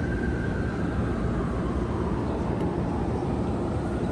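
Steady low rumble of city traffic heard from high above the streets, with a faint steady whine over it.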